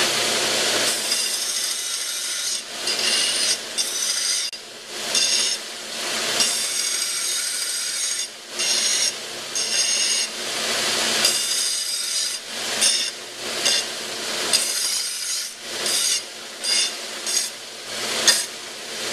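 Belt sander grinding the edges of a small 1/8-inch steel plate to remove bandsaw burrs. The scraping comes in repeated passes of a second or two each, with the belt running between them.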